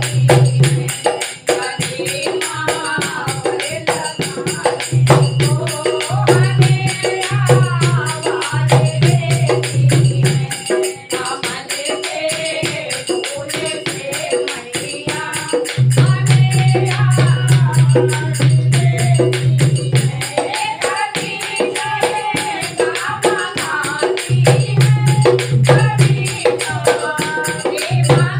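Hindu devotional bhajan: a voice sings a melody over fast, steady hand percussion, with a low sustained bass note that comes and goes every few seconds.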